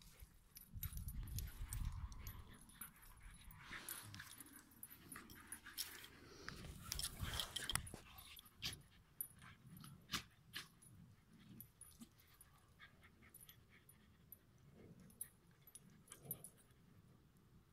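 Dogs at play, heard faintly: small whimpering dog noises among scattered knocks and rustles.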